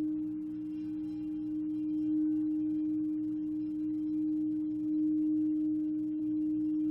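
Violet flame singing bowl ringing continuously in one steady tone, swelling gently in loudness now and then.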